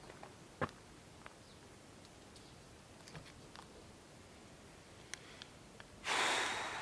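A short, loud breath through the nose close to the microphone, about six seconds in, fading over under a second. Before it, faint background with scattered small clicks and ticks.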